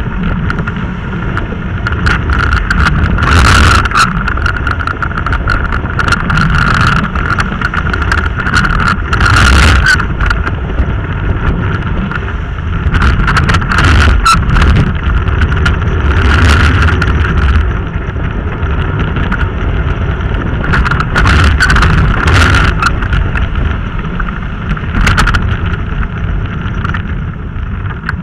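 Rushing wind buffeting the microphone, with wheels rumbling and hissing over wet asphalt during a fast downhill run. A steady high whine runs underneath, and gusts of wind noise swell every few seconds.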